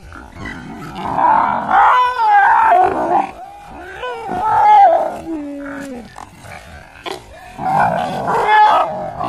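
Animal calls in several loud bursts, their pitch sliding up and down, with quieter gaps between.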